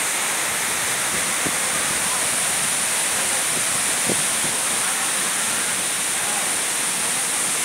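Steady rushing-water noise from a waterfall, an even hiss with no let-up, with a couple of faint knocks about a second and a half and four seconds in.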